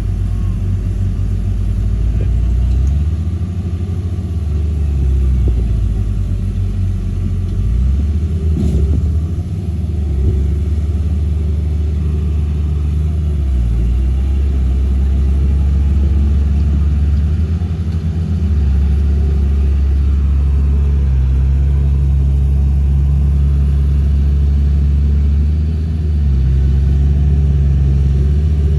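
Bulldozer's diesel engine running under load, its low engine note stepping up and down several times as the revs change.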